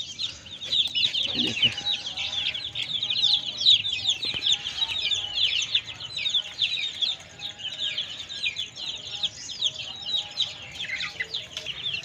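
Many young chicks peeping without pause: a dense chorus of short, high, falling chirps that overlap one another, with fainter lower clucking beneath.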